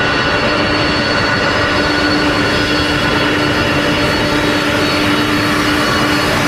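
Boeing KC-46 tanker taxiing close past, its turbofan engines at taxi power: a steady loud rush of jet noise with several held whining tones over it.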